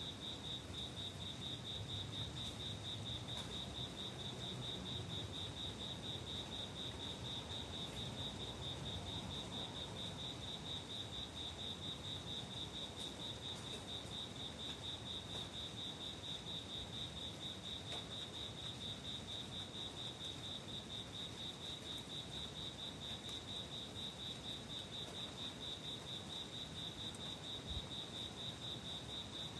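A cricket chirping in a steady, fast, high-pitched pulsing trill that keeps an even rhythm throughout. A single faint knock is heard near the end.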